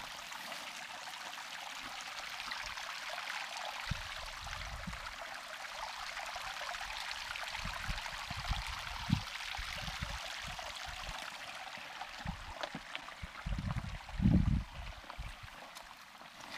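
Small mountain creek trickling and splashing over rocks in a steady rush, with a few low thumps, the loudest about two seconds before the end.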